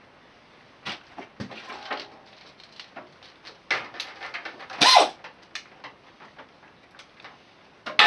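Metal hand tools and sockets clinking and clattering as they are handled and set down, in a series of separate clicks with a louder clatter about five seconds in and another near the end.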